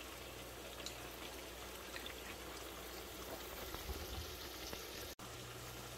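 Cooking oil poured from a bottle into a nonstick frying pan: a faint trickle over a steady low hiss, with the sound cutting out for an instant about five seconds in.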